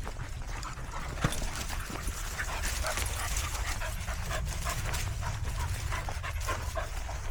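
A dog panting: quick, rhythmic breaths, several a second.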